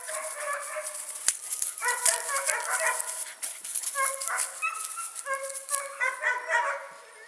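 Puppy yipping and whining in repeated runs of short, high-pitched cries, with a crackly rustle of dry grass and leaves underneath.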